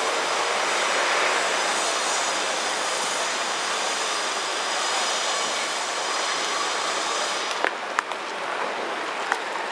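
Steady city-street traffic noise, a continuous wash of passing vehicles. Near the end the hiss thins suddenly and a few sharp clicks stand out.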